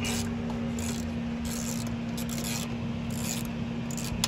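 Hands working on a throttle body in an engine bay: a series of short rubbing, scraping noises, about one every half to one second, over a steady low hum.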